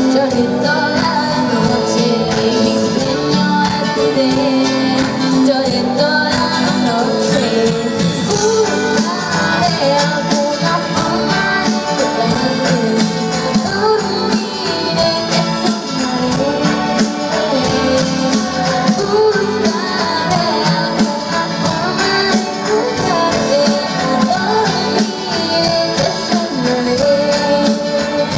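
Live pop band playing a song through a concert sound system, loud and continuous, with a moving melody over sustained chords.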